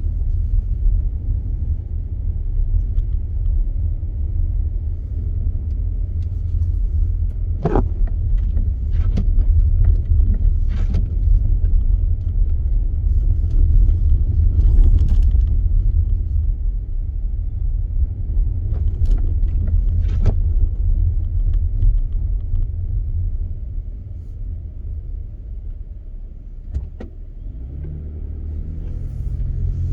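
Car driving, a strong low rumble of road and engine noise with a few sharp knocks. It quietens about three-quarters of the way through, then grows louder again near the end.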